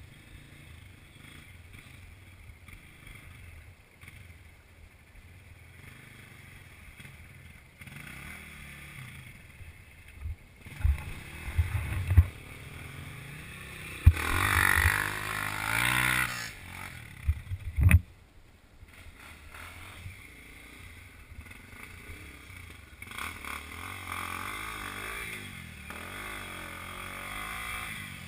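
Dirt bike engines on a trail, running low. Several sharp knocks come about halfway through. Then a second dirt bike passes close, its engine revving up and down loudly for about two seconds.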